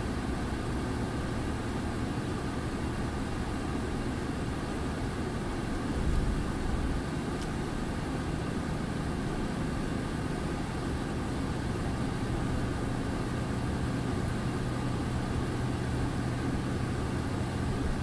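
Heavy truck's diesel engine running steadily under way, with tyre and road noise from a snow-covered motorway, heard from inside the cab.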